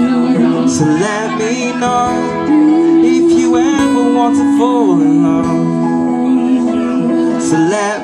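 Live band of acoustic guitar, saxophone and keyboard playing a song, in a passage without lyrics, with long held melody notes that slide and waver.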